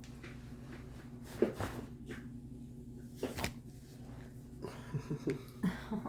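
Joints cracking during a neck and back adjustment: a sharp crack about a second and a half in, another about three and a half seconds in, then a quick run of smaller pops near the end.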